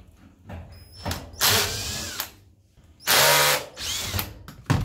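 Cordless drill-driver backing out a casing screw from a portable dishwasher's panel, in two short runs of the motor about a second apart, with light handling clicks between them.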